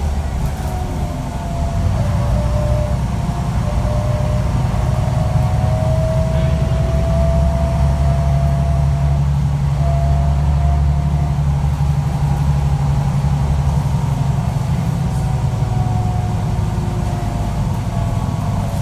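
Articulated city bus's diesel engine heard from inside the passenger cabin, pulling steadily under way with a low drone that firms up about two seconds in and eases near the end. A thin transmission whine slowly rises in pitch over it.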